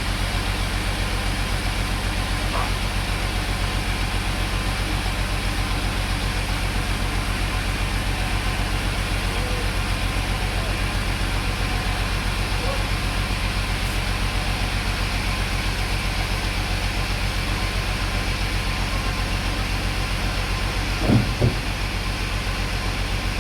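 Sawmill engine running steadily at an even pace, with two short knocks near the end.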